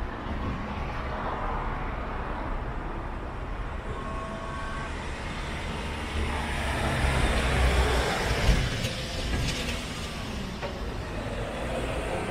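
Street traffic: a steady low rumble, with a motor vehicle passing close by and growing louder for a few seconds around the middle before fading.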